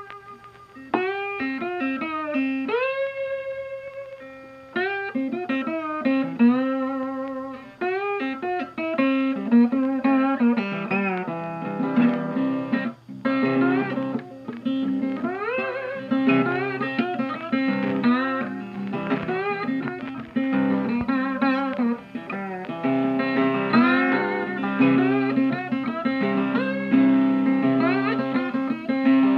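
Background music: an instrumental guitar tune with plucked, bending and sliding notes. It grows fuller and busier from about nine seconds in.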